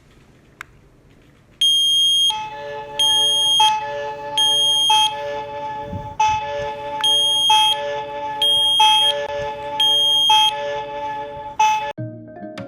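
Smoke alarm sounding in the standard three-beep evacuation pattern: three high-pitched beeps, a pause, then three more, over background music that begins about two seconds in.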